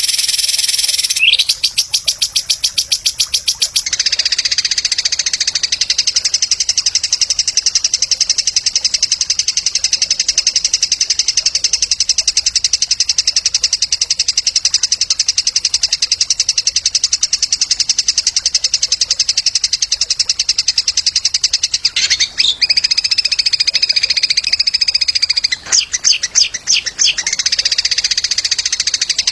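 Songbird singing a long, very rapid, high-pitched trill that shifts in pattern about 4 seconds in and again near 22 seconds, then breaks into a stuttering stretch before running on. This is masteran recorded song, played to teach competition songbirds.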